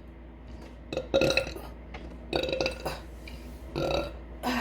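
A woman burping: a string of about four short burps, roughly one a second.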